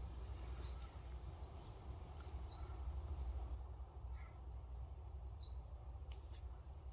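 Short high bird chirps repeating every second or so over a steady low rumble, with a few faint clicks.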